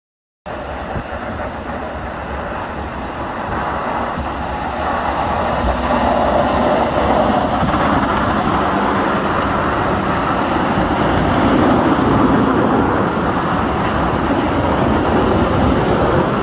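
Snowplow trucks driving along a wet, slushy street: a steady rush of engine rumble and hiss from wheels and blades in the slush. It starts abruptly about half a second in and grows louder over the next few seconds.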